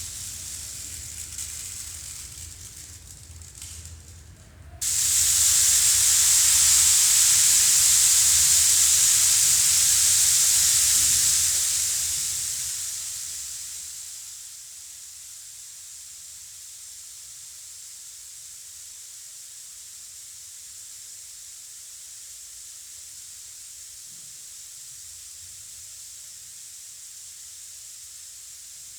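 Large handmade rainstick, its star-shaped beads cascading through the tube after it is turned over, making a soft rain-like rush. About five seconds in it suddenly swells into a loud, bright shower, then fades away over a few seconds into a faint steady hiss.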